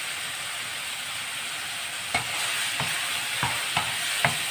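Minced beef, onions and bell peppers sizzling steadily in a nonstick wok. About two seconds in a wooden spatula starts stirring, knocking and scraping against the pan about six times.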